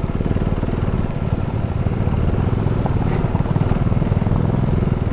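KTM Duke 390's single-cylinder engine running steadily at low revs with the motorcycle under way, a rapid even pulsing.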